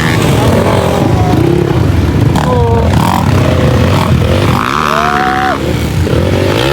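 Dirt bike engines running loud, their pitch rising and falling as they are revved.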